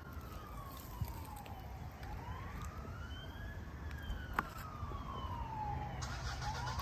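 Emergency vehicle siren wailing in a slow rise and fall of pitch, growing a little louder, with a couple of sharp clicks.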